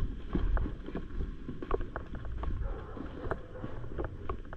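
Low rumbling noise on a body-worn camera's microphone as the wearer moves across an airsoft field, with scattered sharp clicks and ticks that come at no steady rhythm.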